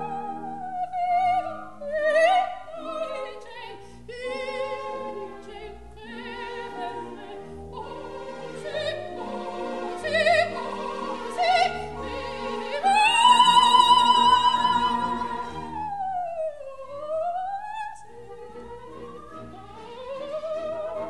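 Operatic coloratura soprano singing with orchestra, moving through quick ornaments and runs. Past the middle she holds a long, loud high note with vibrato, followed by quieter lines that dip and climb near the end.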